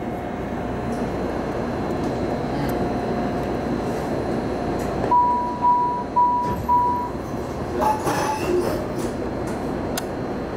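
Inside a MARTA rapid-transit railcar standing at a station platform: the steady hum of the car's equipment and ventilation. About halfway through come four short, evenly spaced beeps, the car's door-closing warning chime.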